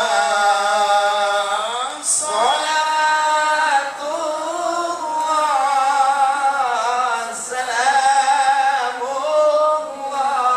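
A man's voice chanting unaccompanied in the ornamented, melismatic style of Quran recitation, holding long wavering notes with short breaks about two and four seconds in.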